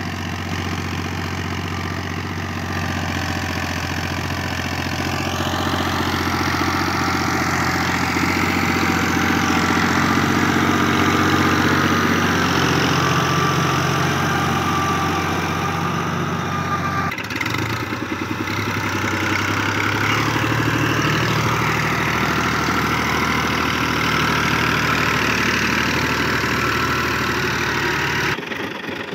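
New Holland Al-Ghazi tractor's diesel engine running steadily under load while it drives a rotavator through the soil. The tone changes abruptly about seventeen seconds in.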